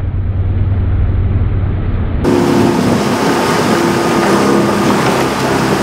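Motorboat engine running, heard from aboard with wind noise. About two seconds in, the sound switches abruptly from a low, dull rumble to a louder, brighter engine drone.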